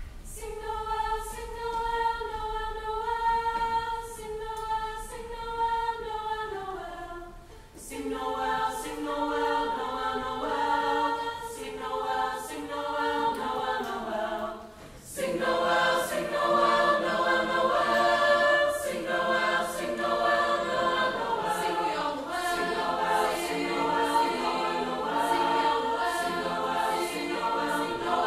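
Mixed choir of girls and boys singing in harmony, with held chords in several parts. The singing breaks briefly about seven seconds in and again about fifteen seconds in, and is louder and fuller after the second break.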